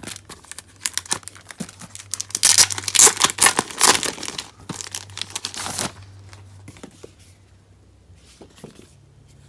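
Packaging on a mini photo brochure being torn open and crinkled by hand, a dense crackling that peaks a few seconds in and dies down to faint rustles after about six seconds.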